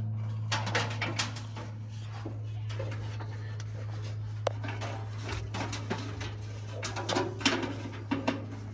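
Scattered clicks, light knocks and rustles of wire being pushed and pulled over a gas tank, with a busier run of knocks near the end, over a steady low hum.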